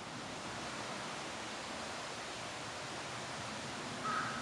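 Steady rush of running water, an even hiss with no rhythm. A short high tone sounds briefly near the end.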